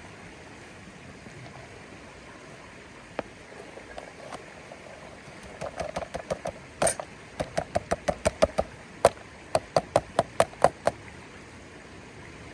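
A run of quick, sharp knocks, about three to four a second, beginning about five seconds in and stopping near the end, over the steady rush of a river.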